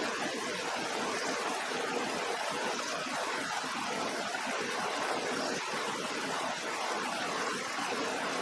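Steady rushing hiss of a small canister gas backpacking stove burning under a pot of water as it heats toward a boil, blended with the rush of a river.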